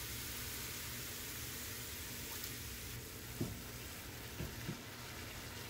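Cauliflower rice frying in a pan with a steady low sizzle just after a splash of water goes in, and a few soft knocks of a wooden spoon stirring it a little over halfway through.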